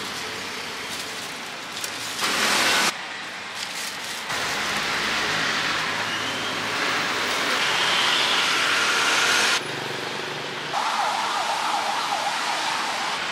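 Steady roadside street and traffic noise, its level jumping up and down abruptly several times.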